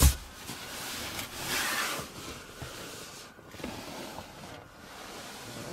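A sharp plastic knock from the rear fold-down armrest's storage-compartment lid, then a few seconds of rustling handling noise.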